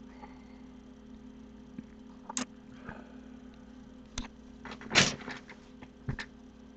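A few sharp knocks and clatters over a steady low hum: single knocks about two and a half and four seconds in, a loud cluster of them around five seconds, and two more near the end.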